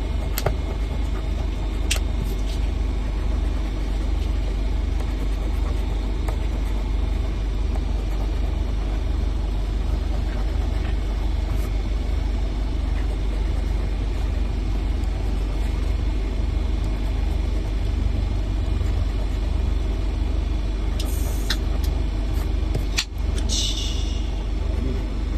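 A coin scraping the coating off a scratch-off lottery ticket, over a steady low rumble.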